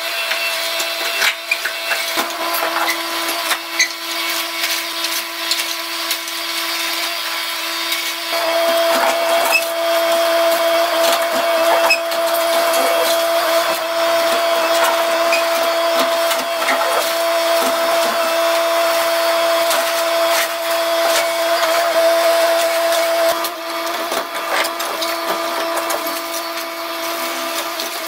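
Excavator with a hydraulic concrete crusher attachment breaking up a reinforced concrete staircase: a steady hydraulic whine with scattered cracking and crunching of concrete. The whine grows louder about eight seconds in and drops back near the end.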